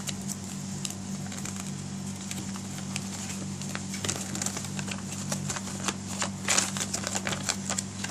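A paper instruction leaflet being unfolded and handled: irregular crinkling and crackling with sharp clicks, busiest in the second half.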